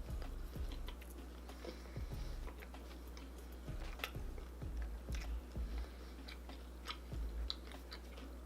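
Close-miked chewing of a mouthful of food, with irregular wet smacks and small crunchy clicks, over a low steady hum.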